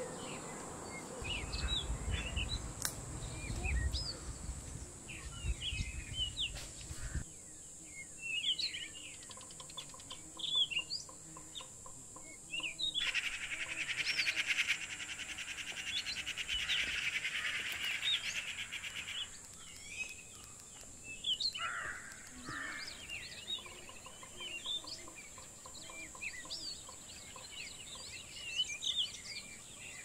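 Several wild birds chirping and calling in short notes over a steady high-pitched drone. A dense buzzing chorus comes in about halfway through and stops abruptly about two-thirds through. A low rumble fills the first several seconds.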